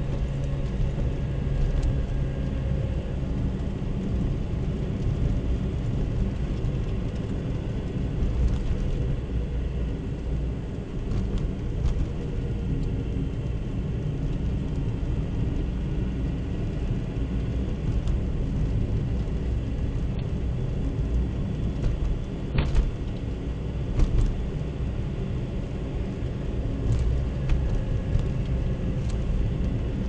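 Car driving on a snow-covered road, heard from inside the cabin: a steady low rumble of engine and tyres, with a few brief knocks about two-thirds of the way through.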